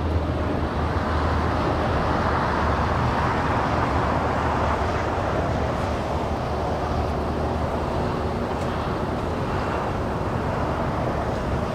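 Jet airliner engines, a steady rushing roar over a low hum, swelling slightly in the middle as the aircraft moves along the runway.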